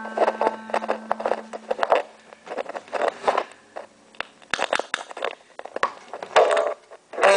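Hands handling a round-bodied plucked lute: irregular clicks, scrapes and rustles on the strings and body, with a few louder scrapes about four and a half seconds and six seconds in. The last plucked note's low tone fades out in the first two seconds.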